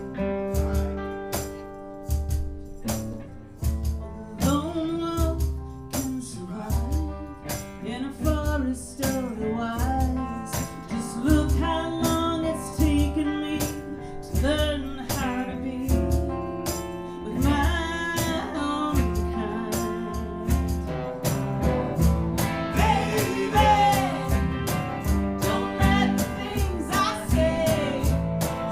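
Live music: a strummed acoustic guitar over a steady beat with tambourine-like percussion, joined by a singing voice about four seconds in.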